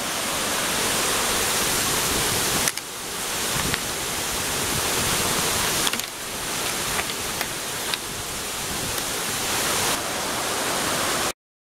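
Rushing water of a mountain torrent, a steady loud hiss that jumps in level at several abrupt cuts, with a few faint clicks.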